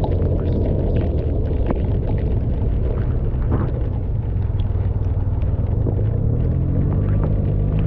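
Yamaha TMAX maxi-scooter's parallel-twin engine running steadily under way, with a low rumble and scattered short ticks. Its pitch rises near the end as it speeds up.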